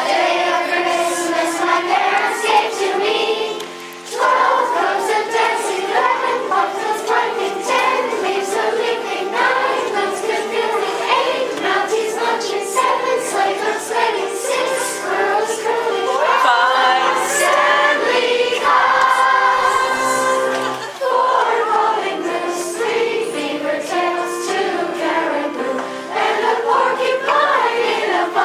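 A group of schoolchildren singing a song together in chorus, with short breaks between phrases about four seconds in and again after about twenty seconds.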